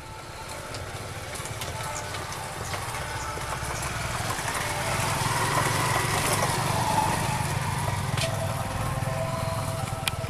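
Diesel-electric locomotive approaching at the head of a passenger train, its engine a steady low drone that grows louder over the first six seconds and then holds, with a few sharp clicks.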